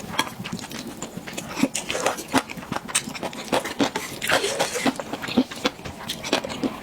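A person eating close to the microphone: irregular wet chewing clicks and mouth smacks.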